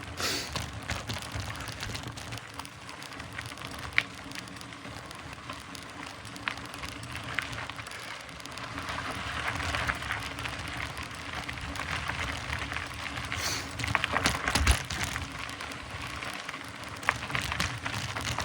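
Mountain bike riding along a dirt forest trail: tyres rolling and crackling over the ground, with a few sharp clicks and a louder, rattling stretch near the end.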